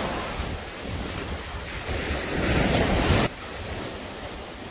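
Sea surf washing and breaking with wind buffeting the microphone, a steady loud rush. About three seconds in it drops abruptly to a quieter wash of wind and water.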